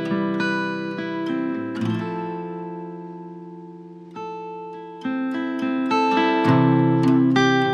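Relaxing background music of acoustic guitar playing plucked notes; a chord rings out and fades about halfway through before the picking starts again.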